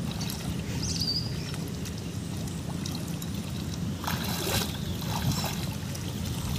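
Hands sloshing and splashing in the shallow muddy water of a flooded rice paddy as weeds are pulled up by hand, with a louder splash about four seconds in, over a steady low rumble.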